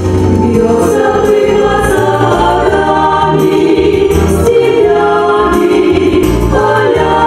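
A mixed choir of men's and women's voices singing a song with band accompaniment, amplified over stage loudspeakers. The singers hold long sustained notes.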